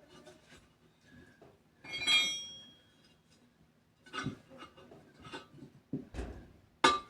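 Metal tire bars clinking and knocking against a steel wheel rim as a tire bead is pried off: one ringing clink about two seconds in, scattered light knocks and scrapes after it, and a sharper knock near the end.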